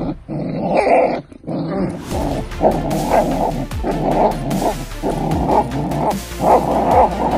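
A puppy growling and barking as it bites and tugs at a toy, with background music underneath.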